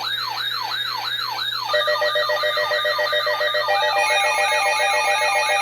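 Emergency alert attention tone for a severe thunderstorm warning: an electronic siren sweeping rapidly up and down, about two and a half sweeps a second. Steady alert tones come in under it a little under two seconds in, and more high tones join about four seconds in.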